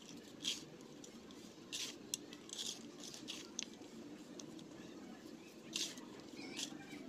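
Dyed baking soda clumps crushed and crumbled by hand on a steel plate, giving irregular soft crunches and crackles, a few louder ones standing out.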